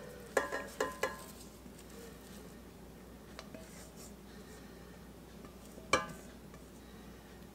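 A spatula knocking against an enamelware mixing bowl and metal bread-machine pan while sticky dough is scraped out. A few short ringing knocks come in the first second, then a single louder knock about six seconds in.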